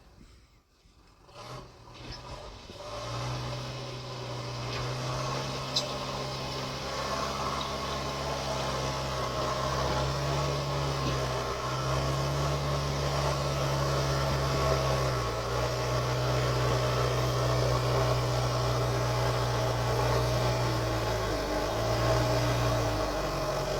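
JCB 3DX backhoe loader's diesel engine running, its revs rising and falling several times as the machine works. It fades in after a near-silent first second. A single sharp click comes about six seconds in.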